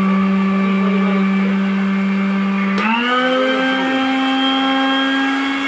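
Marco 250-watt countertop blender running with its jar empty, a steady motor whine. About three seconds in there is a button click and the whine steps up in pitch and holds as the motor switches to a higher speed.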